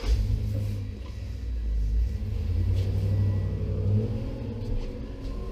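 A motor vehicle engine running with a low rumble, rising a little in pitch about four seconds in and then easing off.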